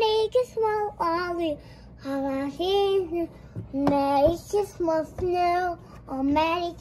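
A young boy singing unaccompanied, in short phrases with long held notes whose pitch wavers.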